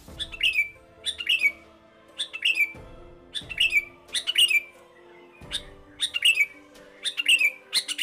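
Sooty-headed bulbul (kutilang) singing: repeated short, loud, shrill whistled phrases, each with notes falling in pitch.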